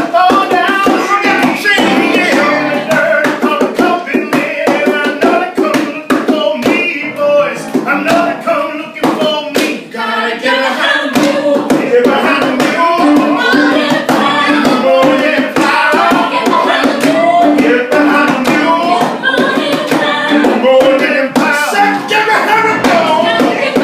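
Live rhythm-and-blues song: voices singing over a steady beat of sharp percussive taps.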